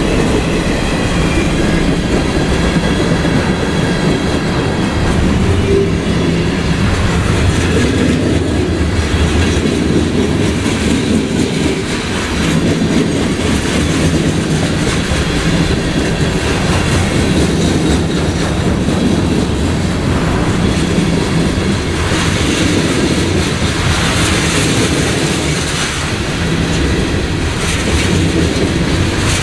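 A freight train's cars rolling past at speed: a steady, loud rumble with the clatter of steel wheels on the rails.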